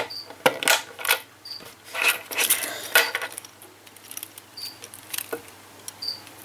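Clicks and small metallic rattles from handling a camera safety lanyard's metal ring and plastic clip. Rustling handling noise runs about two to three seconds in.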